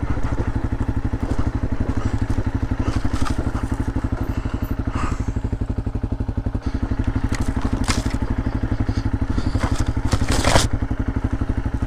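Honda CRF250L dirt bike's single-cylinder four-stroke engine running steadily at low revs, its firing pulses even and unchanging, while it picks its way over rough trail. Scrapes, crackles and occasional knocks come from the tyres and bike on rocks and brush, the sharpest about ten seconds in.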